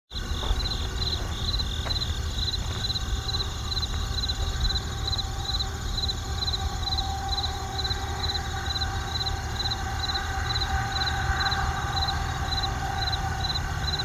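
Crickets chirping in an even rhythm, about three chirps a second, over a steady low rumble of distant road traffic.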